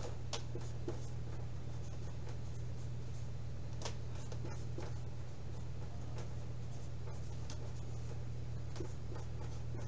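Dry-erase marker writing on a whiteboard, short faint strokes now and then, over a steady low hum.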